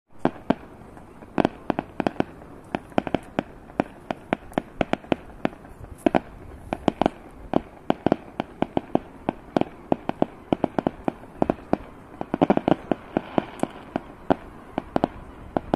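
Fireworks display: aerial shells bursting in sharp, irregular bangs, often several a second, with a dense flurry about twelve seconds in.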